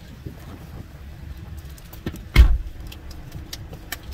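A single loud bang from a metal dumpster about two and a half seconds in, as trash is thrown out at it, over a low steady rumble and a few small clicks.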